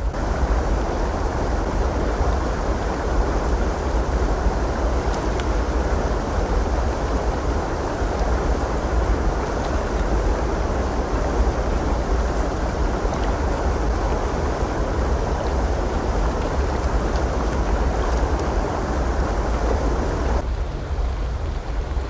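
Waterfall: a steady, loud rush of falling water over a deep low rumble. About a second and a half before the end the rush drops away, leaving mainly the low rumble.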